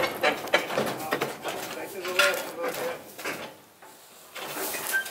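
Rapid metallic clicking and clinking while a car is pulled up onto a wooden trailer deck, with a short voice about two seconds in.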